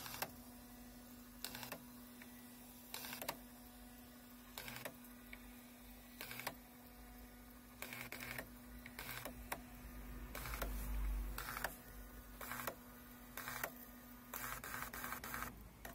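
The built-in printer of a VAG 1551 diagnostic tester printing its help text line by line: short buzzing bursts every second or so, coming closer together near the end, over a steady faint hum.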